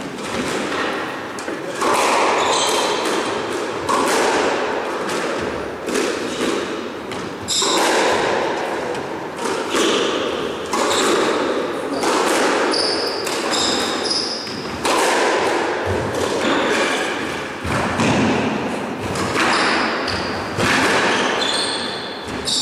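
Squash rally: the racquet strikes the ball and the ball smacks off the court walls, a sharp hit every second or two with a ringing echo after each. Short high squeaks of shoes on the wooden floor come in between.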